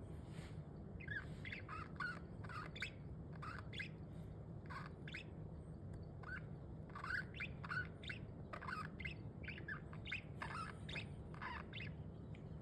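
Pet budgerigars chirping and chattering in short, quick calls throughout, over a steady low hum.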